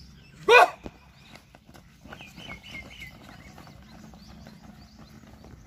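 A short loud shout, then the quick patter of several runners' footsteps on a track as a group sets off.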